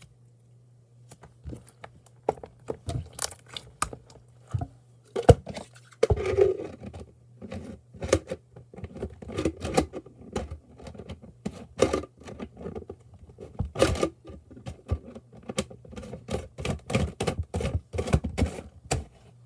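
Hands squishing and stretching slime, making a long run of irregular sticky clicks and pops.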